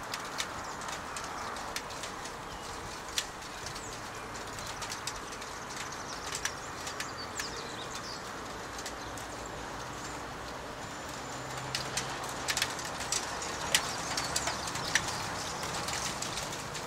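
Steady hiss of rain falling in a thunderstorm, with scattered sharp ticks of drops and a few short bird calls.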